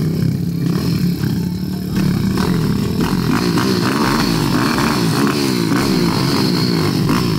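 Two 190cc SYX pit bikes, small four-stroke single-cylinder engines, running at the start line. After a steady couple of seconds they are blipped over and over, the pitch rising and falling, while waiting to be flagged off.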